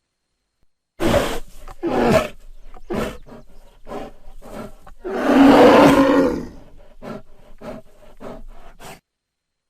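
Bear growls and roars in a sound-effect sequence. It starts with a loud growl about a second in and another a second later, then a string of shorter grunts. A long, loud roar comes about five seconds in, followed by quieter short grunts until it stops near the end.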